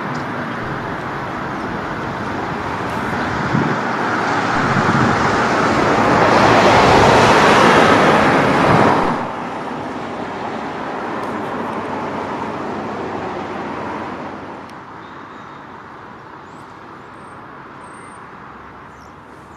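Boeing 747 freighter's four jet engines running at taxi power as the aircraft rolls past. The noise swells to its loudest about seven to eight seconds in, drops sharply about nine seconds in, and fades further near the end.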